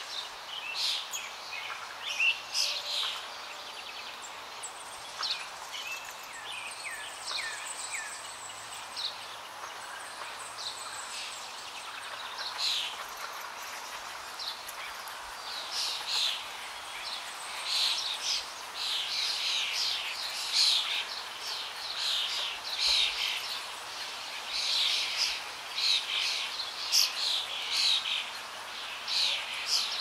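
A chorus of birds chirping and calling: many short, high chirps, sparse at first and thicker and louder in the second half.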